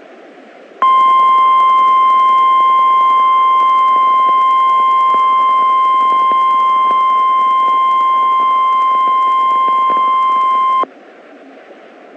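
NOAA Weather Radio 1050 Hz warning alarm tone: one loud, steady high tone of about ten seconds, starting just under a second in and cutting off sharply, over faint radio static hiss. It is the alert tone announcing the tornado watch broadcast.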